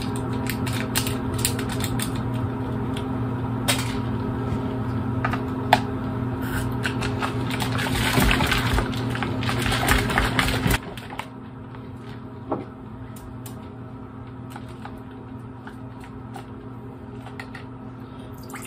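A drink being shaken in a cocktail shaker, its contents rattling in quick clicks that grow densest just before they stop abruptly about eleven seconds in, over steady background music. After that, only a few light clicks and handling sounds.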